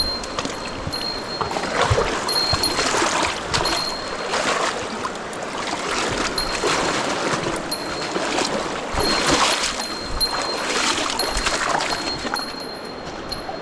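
Mountain stream water rushing and splashing in uneven surges. A faint high tone repeats on and off over the water.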